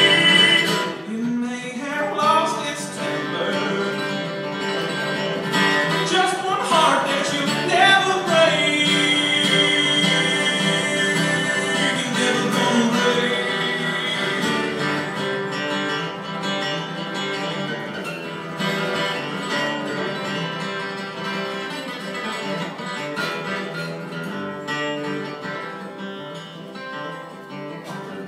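Acoustic guitar played live in a folk-country song's instrumental passage, with a few sliding notes early on, slowly getting quieter over the last third.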